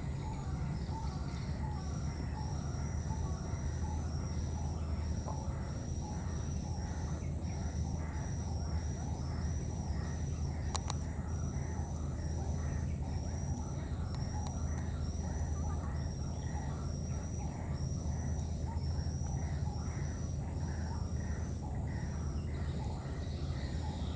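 A steady series of short, high chirps, about two a second, over a continuous low background rumble; the chirping stops shortly before the end, and a single sharp click comes about halfway through.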